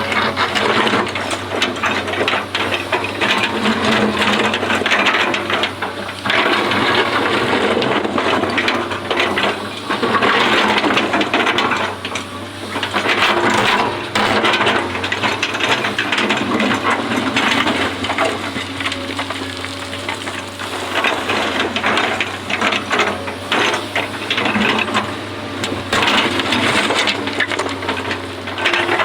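Excavator at work, its engine humming steadily underneath a dense crackling and scraping that swells and eases every few seconds.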